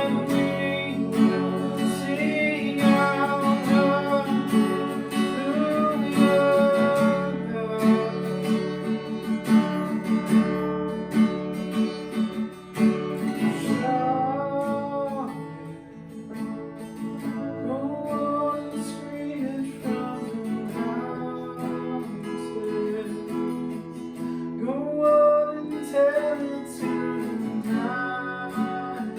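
Worship song played on a strummed acoustic guitar, with a voice singing the melody over it.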